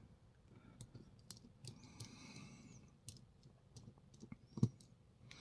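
Faint, scattered small clicks and taps of a brass padlock's parts and tools being handled as it is taken apart, with one louder knock about four and a half seconds in.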